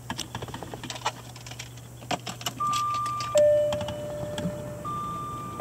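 Keys jangling and clicking at the ignition of a 1999 Jaguar XK8, then about halfway through the dashboard warning chime sounds: a steady tone that switches between a higher and a lower pitch, once the ignition is switched on.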